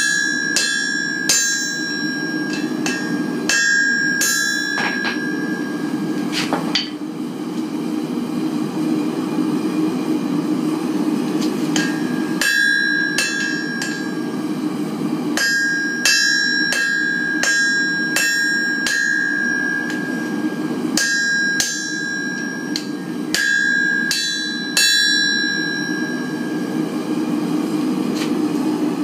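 Hand hammer striking metal on an anvil, straightening a piece of metal: runs of quick blows, each ringing with a clear high tone, broken by pauses. A steady low rushing noise runs underneath.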